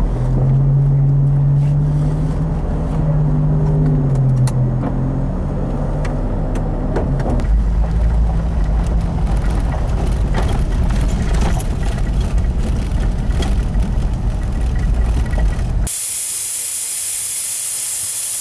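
A vehicle engine running with a low rumble, its pitch rising and falling over the first few seconds. About 16 s in there is a sudden switch to a loud, steady hiss of air escaping from a tyre valve as the tyre is deliberately let down for off-road driving.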